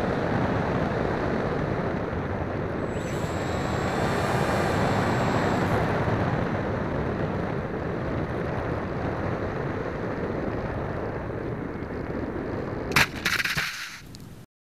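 Onboard audio of a HobbyKing Breeze model plane in flight: a steady rush of wind and motor noise, with a faint high whine for a few seconds. Near the end a sharp thump and brief rattle as the plane comes down on the beach, then the sound cuts off.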